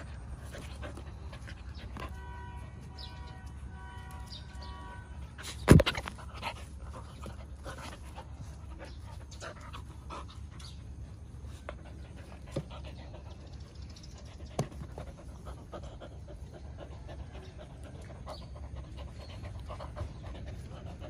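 Dogs panting and snuffling close by while playing with a person, over a steady low background rumble. A single sharp knock about six seconds in is the loudest sound, with a few lighter taps later. A short run of steady tones comes from about two seconds in.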